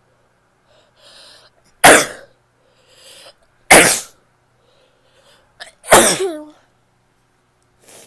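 A woman sneezes three times, about two seconds apart, each sneeze preceded by a softer breathy inhale. The last sneeze trails off in a falling voiced tail.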